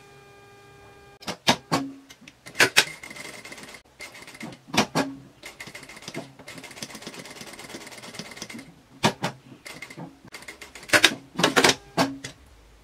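Industrial lockstitch sewing machine stitching steadily for about six seconds, with sharp clicks and knocks just before and after the run.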